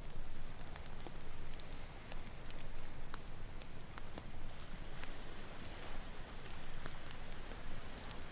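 Campfire crackling, with sharp scattered pops, over a steady wash of ocean waves.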